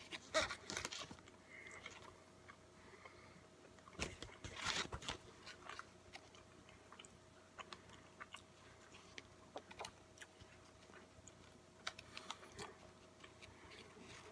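A person chewing a mouthful of burger close to the microphone: soft, irregular mouth clicks and smacks, busiest about four to five seconds in.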